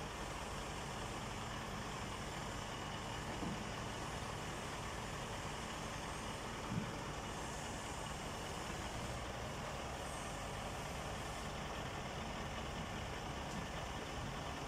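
Heavy engine running steadily at idle, with two brief knocks, one about three and a half seconds in and a louder one about seven seconds in.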